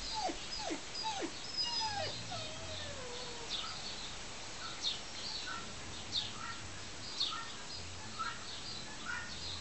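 A dog whimpering: three or four short whines that drop sharply in pitch in the first two seconds, then one longer wavering whine sliding down, with birds chirping.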